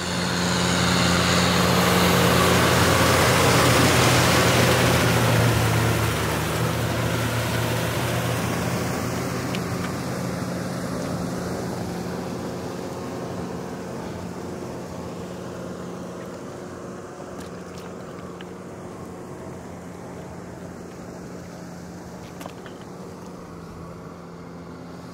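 Tractor engine running steadily, loudest in the first few seconds and then growing gradually fainter.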